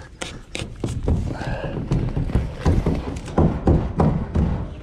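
Footsteps on grass: a string of irregular soft thumps with rustling.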